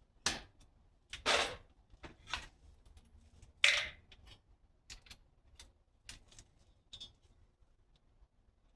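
Thin plastic door panel clicking and knocking against the door as it is handled and hung into place: a string of irregular knocks, the loudest about four seconds in, followed by fainter ticks.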